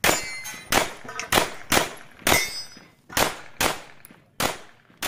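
A string of about ten handgun shots in rapid succession, some fired in quick pairs, from a pistol shooting a practical-shooting course of fire. A metallic ping rings after the first shot and after one about two seconds in.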